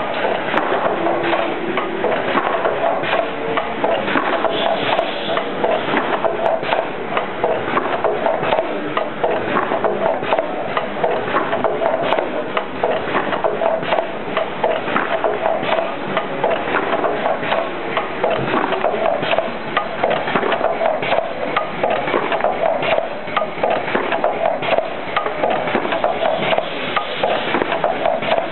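A 20-lane wafer cone denester running: a dense, steady clatter of quick clicks and knocks as cones are released from their stacks and dropped onto the conveyor, with a steady hum underneath.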